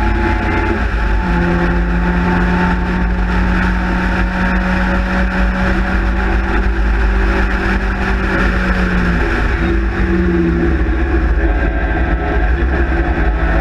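Spridget race car's four-cylinder engine running hard at near-steady revs, under a constant rush of wind noise from the open cockpit. About nine seconds in the note breaks and dips briefly, as in a lift or gear change, then picks up again.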